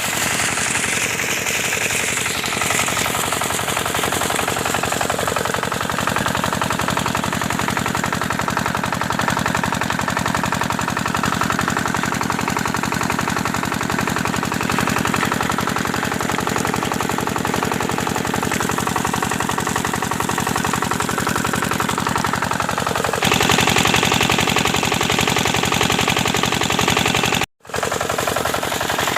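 Engine-driven water pump running steadily, its engine firing in rapid, even pulses, with a brighter hiss joining in about three-quarters of the way through and a brief drop-out near the end.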